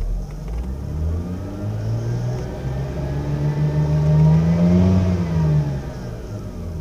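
Mazda RX-8's twin-rotor Renesis rotary engine, warm, revved up slowly and let fall back toward idle. The pitch climbs for about four seconds and drops back near the end.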